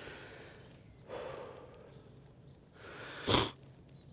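A man breathing hard close to the microphone, winded from dragging a deer. There are several long breaths, and a short, sharp breath about three seconds in is the loudest sound.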